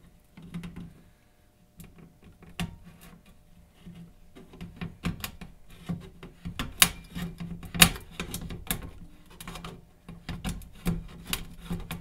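The can-opener hook of a Ninja Outdoorsman 11-in-1 stainless steel credit-card multi tool being levered and cut around the lid of a steel tin can: irregular sharp metal clicks and scrapes starting about two seconds in, a few of them loud. The thick hook catches the can's lip well and opens it without trouble.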